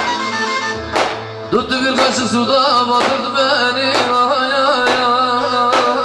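Live Turkish folk music: a barak uzun hava, with a man's ornamented singing over electric bağlama and keyboard. A sharp percussive hit marks a beat about once a second.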